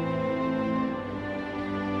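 Background music: soft, sad-sounding sustained notes held and changing slowly.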